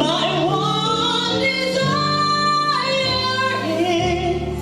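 Gospel worship music: a woman singing long, rising and held notes over sustained chords that change twice near the end.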